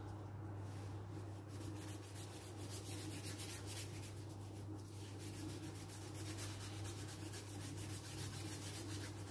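Paintbrush rubbing back and forth across paper, spreading black paint: a faint, steady scrubbing. A low steady hum runs underneath.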